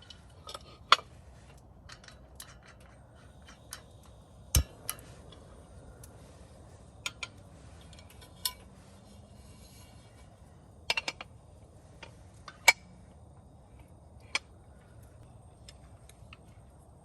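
Irregular sharp clicks and knocks, about fifteen in all, over a steady low background hiss. The loudest come about a second in and about three quarters of the way through, and one about a third of the way in lands as a deeper thump.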